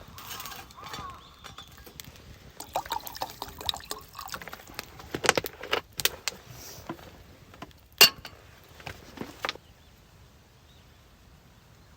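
A run of light clinks and knocks, as of small hard objects being handled, with one sharp, loud click about eight seconds in.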